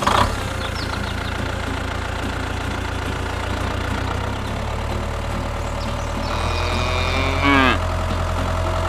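Engine running steadily with a deep low hum, as of a tractor. A little after six seconds in, a higher wavering tone joins and slides down, then stops.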